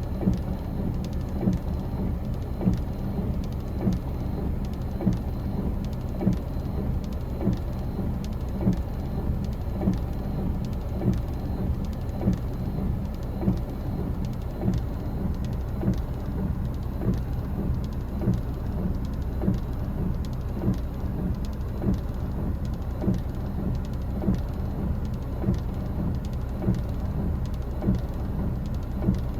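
Steady low rumble of wind and rain, with faint ticks and a regular soft beat a little more than once a second.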